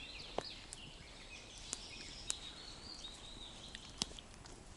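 Faint distant birdsong, high wavering notes, over quiet forest background, broken by a few short sharp clicks.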